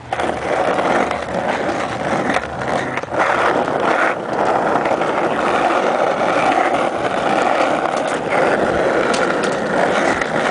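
Small hard wheels rolling over asphalt: a steady, loud rolling noise with a few sharp clicks.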